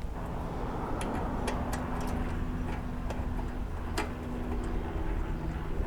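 Light, irregular metallic clicks and taps as a windshield mounting bushing and its bolt are fitted into a motorcycle's fork bracket with an Allen wrench, over a steady low background hum.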